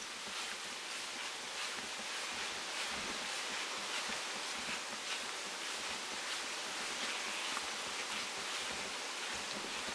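Steady outdoor ambience: a continuous hiss with light, scattered rustling crackles and a faint steady high tone.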